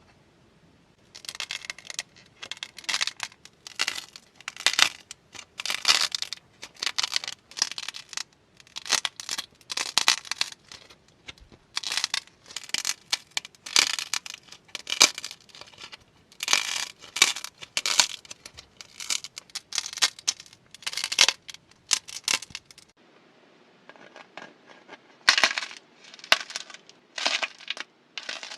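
Slime being squeezed and poked by hand, giving repeated short crackling, popping bursts about once or twice a second.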